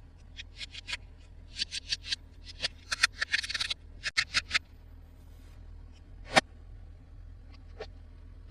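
Hands handling plastic toy pieces and packaging: a string of small clicks and crinkles, thickest around three seconds in, with one sharp click a little past six seconds.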